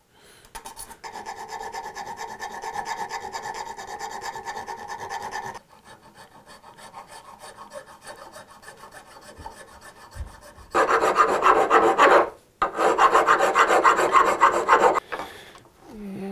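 Sandpaper being rubbed back and forth in fast, even strokes on the infill plane, a dry scratching that goes in bouts: moderate at first, quieter in the middle, then two loud bouts near the end with a brief pause between them.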